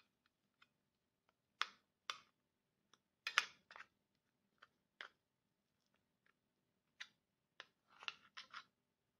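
A metal fork scraping and clicking against the inside of an opened tuna tin as the tuna is scooped out: a dozen or so short, irregular scrapes and taps, loudest about three seconds in and again near the end.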